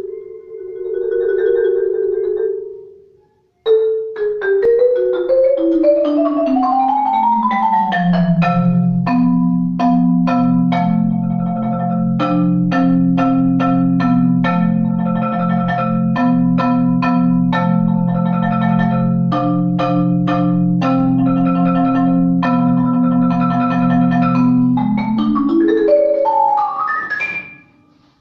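Marimba One rosewood-bar marimba played with mallets in an atonal improvisation. A rolled note and a brief break open it, then runs climb and fall at the same time. A long stretch of repeated chords rings over low held bass notes, and a fast run climbs high near the end.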